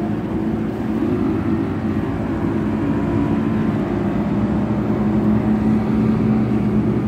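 Boat's outboard motor running steadily under way, a constant engine hum with water and wind noise.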